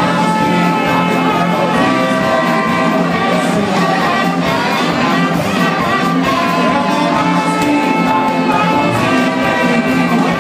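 Live blues band playing, with harmonica carrying held, bending lead lines over bass and drums keeping a steady beat.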